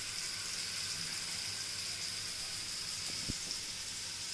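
Masala-coated seer fish pieces frying in hot oil in a pan: a steady sizzle, with one soft tap about three seconds in.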